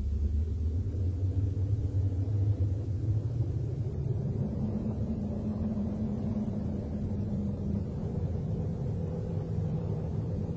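A low, steady droning rumble made of sustained deep tones, whose main pitch steps up about four seconds in.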